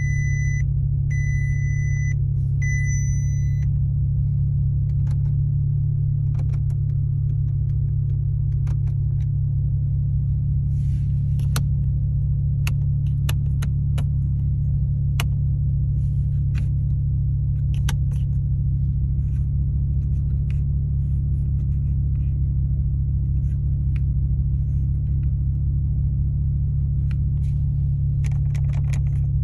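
A Volkswagen Golf running with a steady low rumble. Near the start a warning chime beeps three times, about a second apart, and light clicks come now and then.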